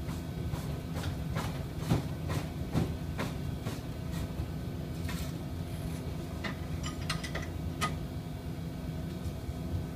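Steady hum of shop machinery. Over it, a run of clicks, about two a second, through the first four seconds, then a few ringing metal clinks near the end.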